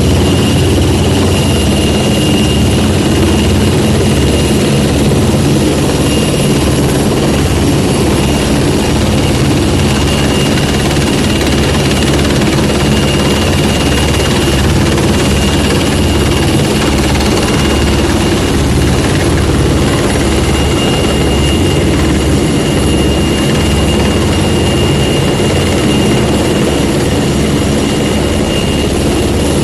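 Rescue helicopter running close by, loud and steady: a fast rotor beat with a high turbine whine over it.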